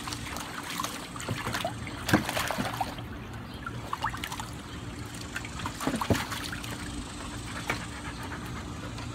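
A dog splashing in a shallow plastic kiddie pool: paws and muzzle slapping and stirring the water in irregular splashes and trickles, the loudest splashes about two seconds in and again around six seconds.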